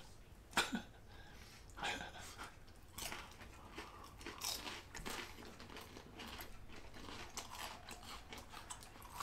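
Quiet crunching and chewing of pan-fried lotus root slices coated in crisp fried cheese, a few sharp crunches at irregular moments.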